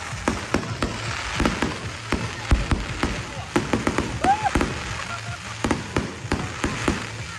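Aerial fireworks going off in quick succession, two or three sharp bangs a second, over a steady crackling hiss from the bursting stars.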